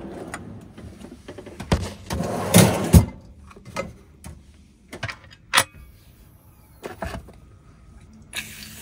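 A push-button cabinet latch clicking open and a wire-basket pull-out drawer sliding out about two seconds in, followed by scattered clicks and knocks of plastic food containers being handled in the basket.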